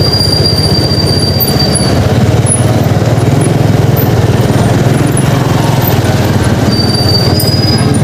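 Motorcycle engine running at low speed with road and wind noise, and a thin, steady high squeal for the first two seconds and again briefly near the end.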